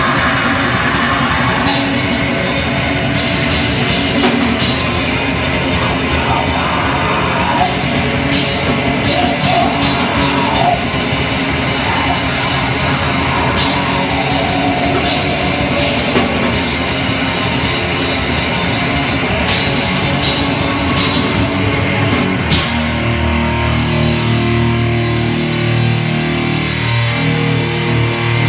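Raw black metal band playing live and loud: distorted electric guitar, fast drum kit with crashing cymbals, and harsh screamed vocals. About 22 seconds in the drums and cymbals drop out, leaving the distorted guitar ringing on alone.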